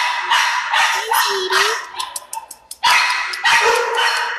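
Shelter dogs barking in their kennels: a quick run of loud barks with short gaps between them.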